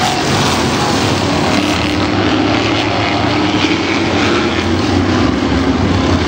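Several sportsman race car engines running at speed around the oval, a loud, steady engine noise with no distinct crash impact standing out.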